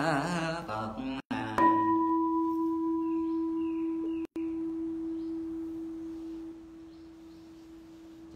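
Chanted voices, then a Buddhist temple bowl bell struck once about a second and a half in, ringing with a steady low tone and a fainter higher overtone that slowly fades. It marks a prostration after a Buddha's name is recited.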